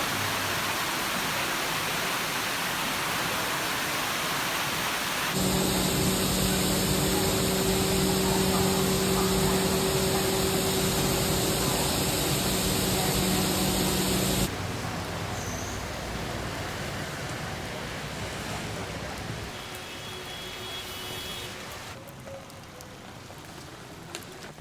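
Heavy rain and rushing water: a steady, dense hiss that changes abruptly at cuts. From about five to fourteen seconds in it is louder, with a steady low hum beneath it, then it grows gradually quieter.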